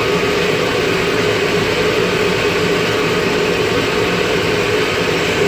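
Airport pushback tug's engine running steadily, heard from inside the tug's cab, a loud even drone with a steady whine over it.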